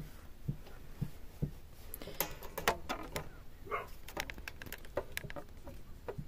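Small clicks and taps of cross-stitch materials being handled at close range: a few soft knocks, then a quicker run of sharp clicks with a brief scratchy rustle in the middle.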